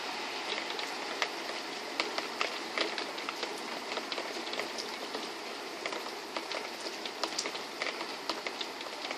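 Steady rain, with individual drops landing close by as frequent, irregular sharp ticks.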